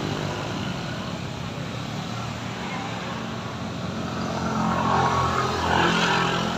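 Vehicle engine straining under load on a steep uphill climb, its note getting louder about four seconds in.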